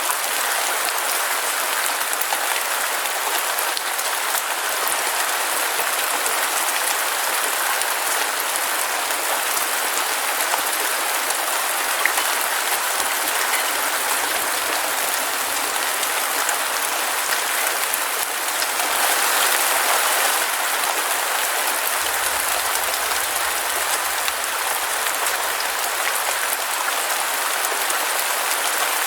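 Heavy rain falling steadily, an even hiss that swells slightly about two-thirds of the way through.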